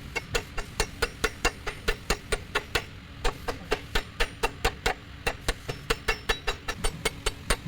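A steady, even series of sharp taps or clicks, about four to five a second.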